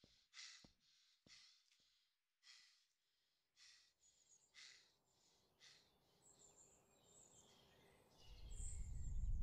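Faint breathing of a man, slow breaths in and out about once a second. Near the end a low rumble swells in.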